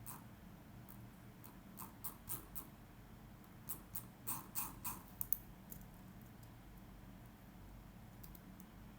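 Computer keyboard keystrokes: a short run of about a dozen irregular taps between about two and five seconds in, then only a faint low hum.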